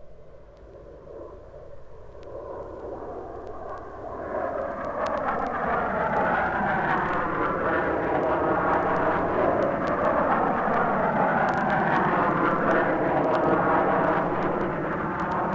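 Aircraft engines fading in from silence and swelling over about four seconds to a steady loud sound whose pitch bends slowly down and up again, as a plane passes. This is a sound-effects recording played from vinyl, with light surface clicks.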